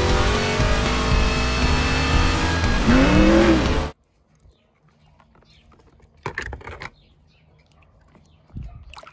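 Race-car sound clip: loud engines with a rising and falling whine near the end, cutting off suddenly about four seconds in. Two short faint noises follow later.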